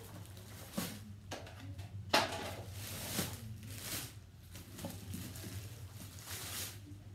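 Clear plastic bag crinkling and rustling in irregular bursts as a boot is slid out of it and the bag is crumpled by hand, over a steady low hum.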